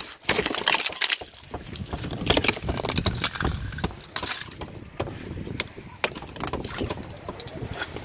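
Thick glaze ice cracking and snapping as an ice-coated car door is pulled open: an irregular run of sharp cracks and crunches, loudest in the first second and again a couple of seconds in.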